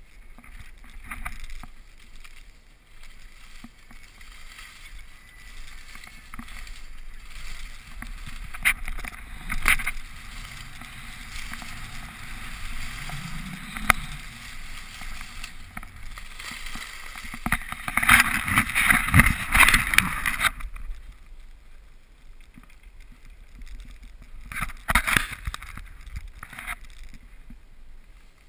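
Skis hissing and scraping over packed snow during a downhill run, with wind rushing over the GoPro. About two-thirds of the way through, the scraping grows louder and rougher for a couple of seconds, and a few shorter bursts of scraping come near the end.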